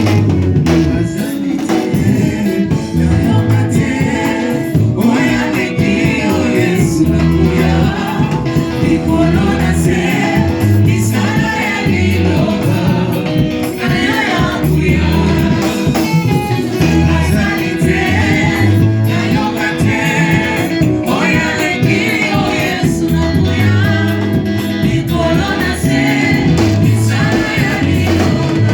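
Live gospel worship music: a group of singers over a band with bass and drums, with a steady driving beat.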